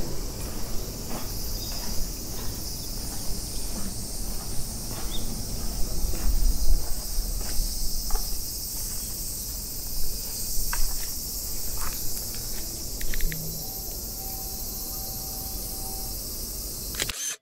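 Steady high-pitched insect chorus over a low rumble, with scattered faint clicks and a short steady tone near the end.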